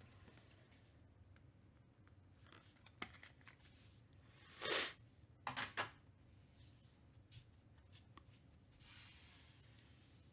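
Glossy Panini Mosaic football trading cards being handled: faint rustles and slides as cards are moved off a stack and set down on a pile, with one louder swish about halfway through and two short ones right after.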